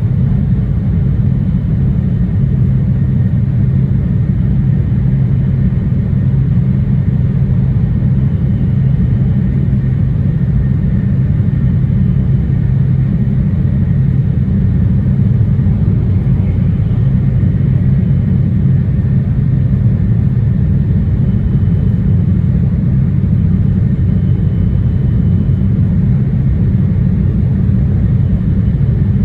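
JR East E2 series 1000 Shinkansen running, heard inside a passenger car: a steady low rumble of wheels on rail and running gear, even in level throughout.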